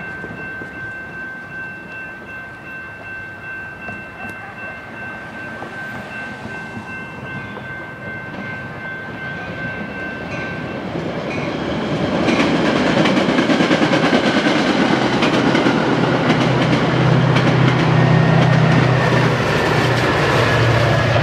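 Metra diesel commuter train approaching and passing. A steady high ringing tone sounds for the first half. From about twelve seconds in, the locomotive and cars go by much louder, with the diesel engine's low hum under the rolling noise.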